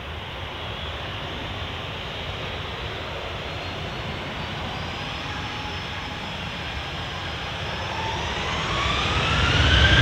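Boeing 737's twin jet engines running at low taxi power with a steady rumble and hiss. Near the end they spool up: rising whines climb in pitch and the engines grow louder as thrust is applied for the take-off roll.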